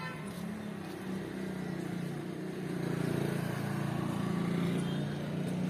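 A motor engine running with a steady low hum that grows louder about halfway through, as if a vehicle is drawing closer.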